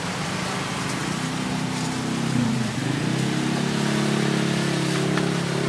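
A motor vehicle engine runs close by, over a steady hiss. Its note drops about halfway through, then climbs again and holds steady.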